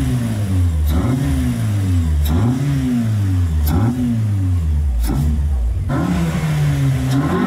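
Car engine fitted with a sport air filter and a new exhaust, revved in about five quick blips with a brief crack near the top of several of them, then held at a steadier speed near the end.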